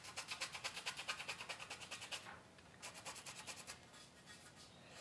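Hand sanding with 220-grit sandpaper over a ridge of cured epoxy on a wooden paddle tip: rapid back-and-forth rasping strokes. A brief pause comes a little after two seconds in, then more strokes that fade toward the end. The sanding is smoothing the epoxy ridge and scuffing the bare wood beside it.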